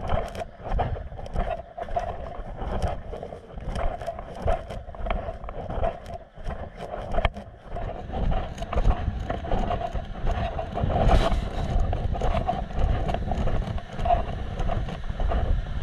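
Footsteps crunching through dry bamboo leaf litter on a trail, over a low wind rumble on the microphone. From about eight seconds in, a steady rush of water from a weir comes up underneath.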